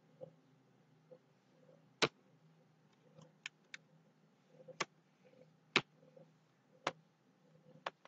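Computer mouse clicking: about eight sharp single clicks at irregular intervals, the loudest about two seconds in and near six seconds, over a faint steady low hum.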